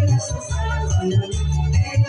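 Upbeat daling-daling dance music with a heavy, steady bass beat, a melody and bright shaker-like percussion over it.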